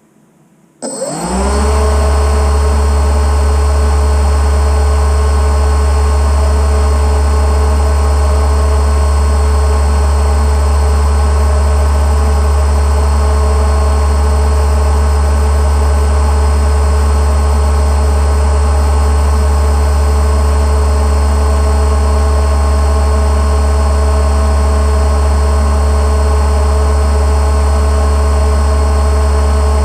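Boat engine starting about a second in, its pitch rising briefly as it catches, then running loud and steady at constant speed.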